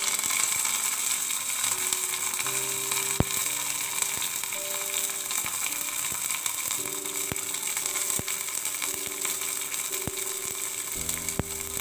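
Curry leaves sizzling and crackling in hot coconut oil in a small steel pan with shallots and dried red chillies, a tempering for a fish curry; the sizzle starts suddenly as the leaves drop in and keeps up with sharp crackles throughout. Soft background music plays underneath.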